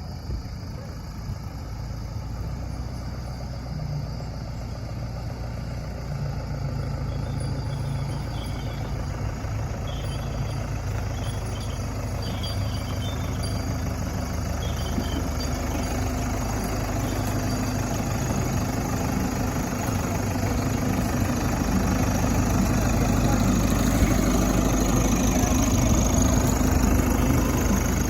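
Diesel engines of a backhoe loader and farm tractors running steadily, growing gradually louder over the second half.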